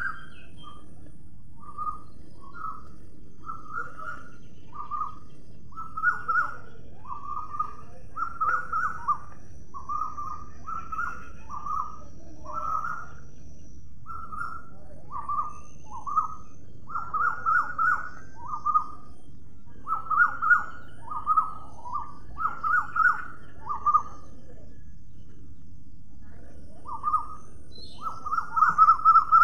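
Bird calls: short chirping notes repeated in uneven runs of one to three a second, over a steady low background noise. The calls pause for a couple of seconds near the end, then come back louder.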